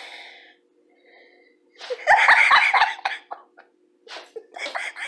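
A person laughing: a loud burst of laughter about two seconds in, then a run of short, rhythmic laughs near the end.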